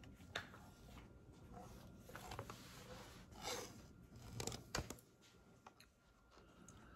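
Faint handling sounds of cardstock and small craft tools on a stamp-positioning board: soft paper rustles and several light clicks, the sharpest a single click a little before the five-second mark.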